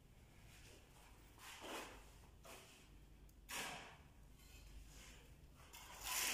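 Three soft breaths close to the microphone, about two seconds apart, the last the loudest, over a quiet room.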